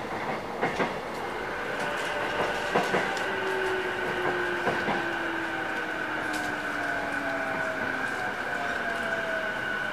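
Ride sound of a JR East E233 series 8000 subseries electric train slowing for a station stop: the traction motor whine falls slowly in pitch over a steady high whine, with a few wheel clicks over rail joints in the first half.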